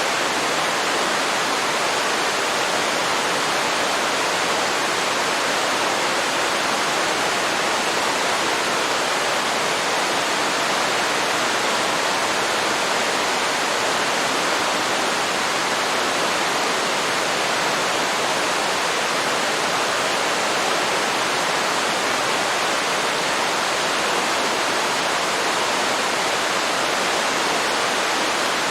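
Waterfall pouring into a river, a steady, even rush of falling water with no breaks or changes.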